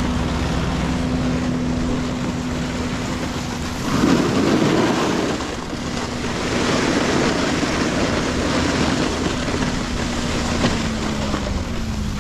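Snowmobile engine running at a steady pitch that sags slightly near the end as it slows, with wind noise on the microphone and a louder rush of noise about four seconds in.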